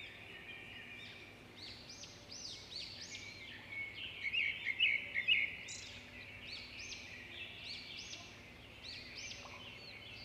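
Birds chirping and twittering: many short, repeated high calls, busiest about four to five seconds in.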